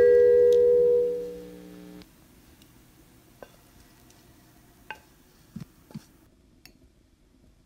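Guitar background music fading out over the first two seconds, then a few faint clicks and taps of a wooden spatula against the pan and bowl as fried rice is pushed out of the pan into a ceramic bowl.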